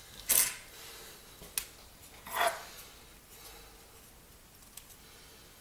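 Hands handling things on a workbench: a few brief soft rustles and a light click, with quiet between them.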